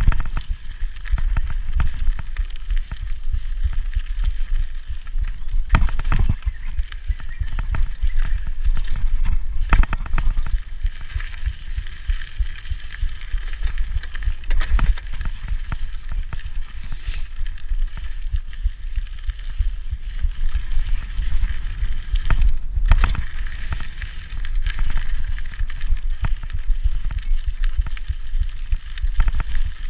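Rigid mountain bike, a 1990 Peugeot Hurricane, ridden fast down a dirt singletrack: Michelin Wildgripper tyres rolling and crunching over dirt and stones, with the bike rattling over bumps. There is a constant low rumble of wind and jolts on the microphone, and sharper knocks over bumps, the loudest about 6, 10 and 23 seconds in.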